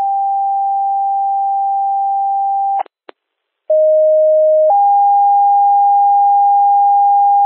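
Two-tone radio alert over a police scanner. A steady higher tone holds until about three seconds in and cuts off. After a click and a short gap, a lower tone sounds for about a second, then steps up to the higher tone, which holds on.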